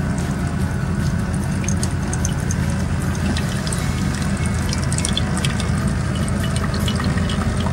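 Bosch Tassimo pod coffee machine brewing: coffee trickling and dripping into a ceramic mug over a steady low hum.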